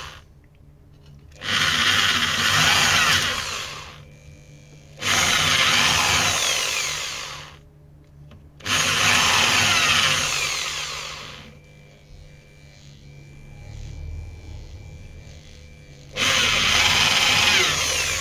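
Electric drill boring shallow holes into a wooden batten, running in about four bursts of two to three seconds each with short pauses between, the last after a longer pause.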